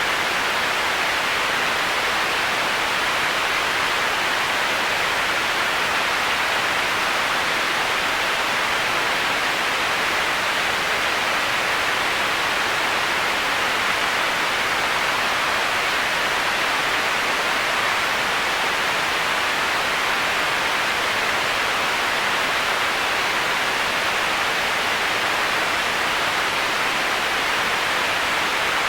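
Heavy-rain white noise for sleep: an even, unbroken hiss, strongest in the middle-high range, with no separate drops or other events.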